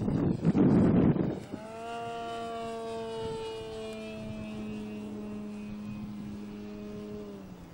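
Large electric RC model airplane with a Plettenberg Predator brushless motor and 24x12 propeller, flying: a loud rushing noise for about the first second and a half, then the steady drone of the propeller with a slowly falling pitch, fading near the end.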